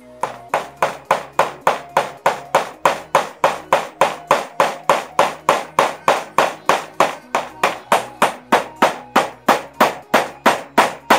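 Hammer blows struck in a fast, even rhythm of about three to four a second, typical of nails being driven in roof repair work.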